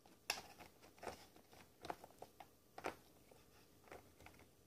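Near silence with a few faint, scattered clicks and rustles from fingers handling the wires inside a foam-board model plane's fuselage.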